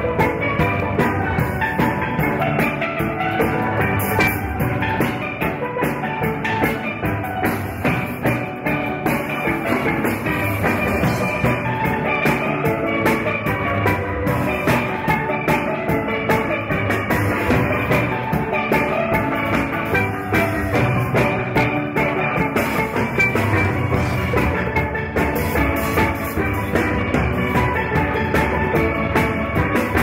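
Steel orchestra playing a tune: steelpans carry the melody over a steady drum beat.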